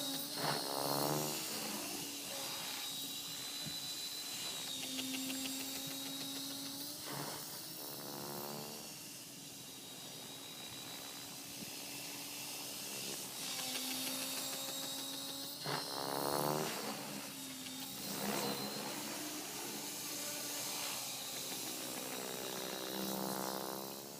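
Mini Protos electric RC helicopter running at a low headspeed of about 2000 rpm: a steady hum with a thin high whine, and a wavering sweep that swells and fades four times, about every seven to eight seconds. This is the bad sound, which the owner suspects is blade noise.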